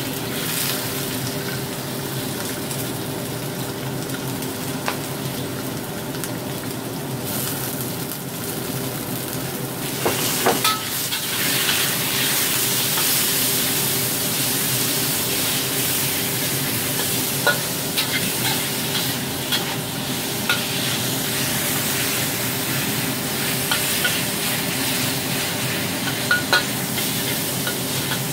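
Diced pork belly sizzling in hot oil in a wok, stirred and tossed with a metal spatula that clicks and scrapes against the pan now and then. The sizzle grows brighter and a little louder about ten seconds in.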